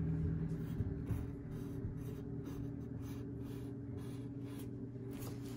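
Pencil scratching on paper in short, irregular strokes as a zigzag line is sketched, over a steady low hum.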